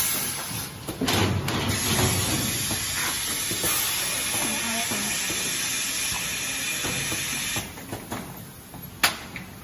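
Compressed air hissing steadily from the pneumatic suction-cup pickup arm of a high-frequency blister and paper card welding machine while its cups hold a row of finished blister cards; the hiss cuts off after about seven seconds. A single sharp click follows about a second later.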